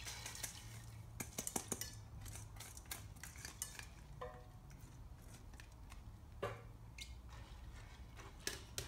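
Stainless-steel colander knocking and scraping on a non-stick pan as soaked white corn kernels are tipped out into coconut water, with faint scattered clinks. A spoon stirs in the pan near the end.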